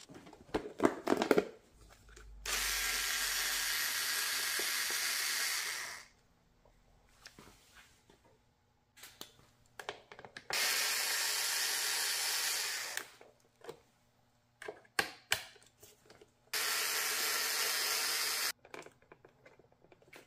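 A small power tool running in three steady bursts of a few seconds each, with clicks and knocks of handling between them.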